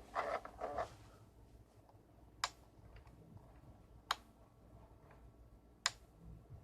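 Three sharp, isolated ticks about a second and a half apart over a quiet background, preceded by a brief pitched sound in the first second.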